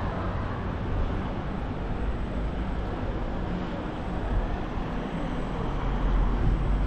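Steady rushing noise of a scooter ride: wind rumbling on the microphone and tyres rolling over asphalt, a little louder near the end.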